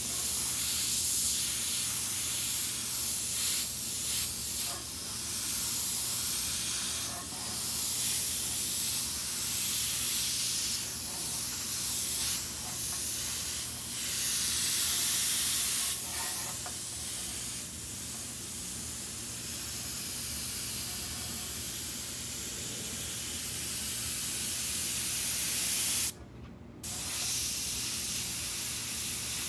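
Airbrush spraying paint: a steady hiss of compressed air that swells and eases as the trigger is worked, cutting out for about half a second near the end.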